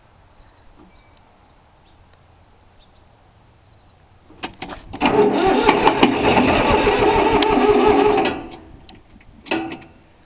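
Starter cranking a three-cylinder Yanmar diesel for about three seconds, a fast even churning that starts with a click and winds down, without the engine catching; a shorter burst follows near the end. The engine fails to fire because the fuel lines were not bled, which the owner gives as the cause.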